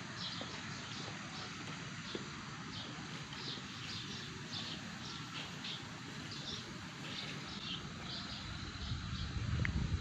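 Murai papua (saeran) bird calls, short high chirps repeated about twice a second, over steady outdoor background noise. A low rumble swells near the end.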